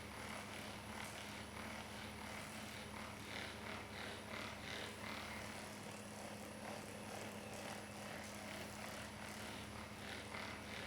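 Steady low hum and hiss of room background noise, with faint, brief rustling sounds now and then, a cluster about three to five seconds in and more near the end.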